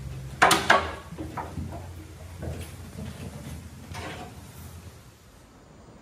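A few knocks and clunks, two sharp loud ones about half a second in, then fainter ones spaced a second or so apart, over a low rumble.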